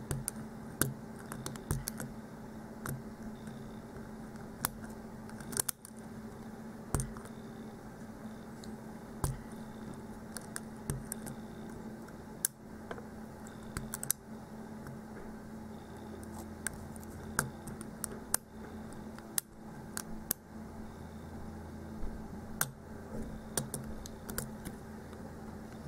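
Lock pick and tension wrench working the pin stack of a padlock during single-pin picking: small, irregular metallic clicks and scrapes, spaced unevenly, over a steady low hum.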